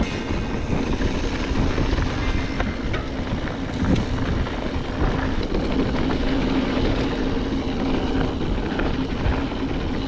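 Steady wind rush on a GoPro microphone with tyre rumble from a mountain bike riding a dirt trail.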